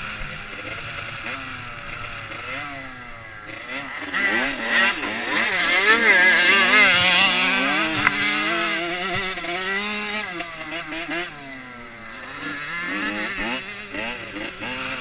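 Dirt bike engine ridden hard, its pitch swinging up and down as the throttle opens and closes, loudest in the middle, with rushing wind noise over the helmet-mounted microphone.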